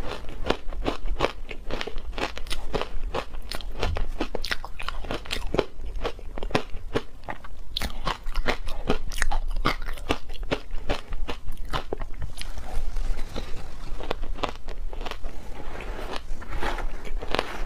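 Shaved ice crunching loudly as it is bitten and chewed in big mouthfuls: a dense, rapid run of sharp crunches several times a second, the ice coated in matcha and milk powder.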